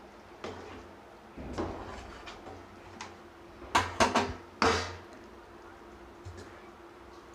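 Cookware being handled: a few scattered sharp knocks and clatters, with a quick cluster of four louder clanks about four seconds in.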